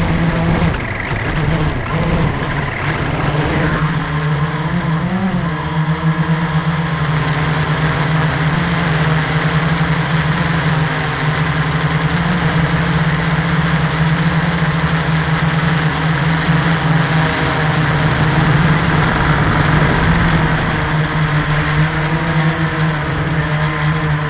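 350QX quadcopter's electric motors and propellers buzzing steadily, heard from a camera mounted on the drone itself. The pitch wavers and glides in the first few seconds as it lifts off from the ground, then holds steady in flight.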